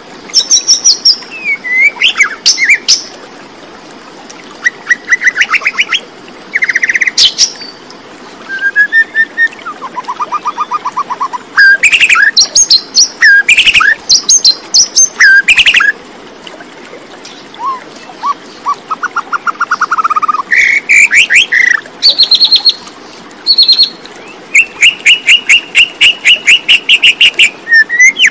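A songbird singing a long, varied song of chirps, whistled notes and fast trills, in phrases at changing pitches with short pauses between them.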